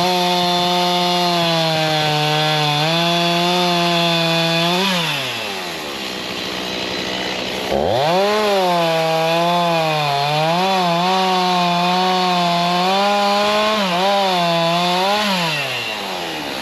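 Two-stroke chainsaw cutting tree branches, revved up to full throttle twice. Each rev holds for several seconds before dropping back toward idle, and during the second one the pitch wavers as the chain bites and frees in the wood.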